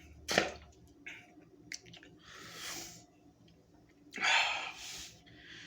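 A person breathing hard between gulps while chugging soda: a short sharp sound about a third of a second in, then three heavy breaths out, the second one the loudest.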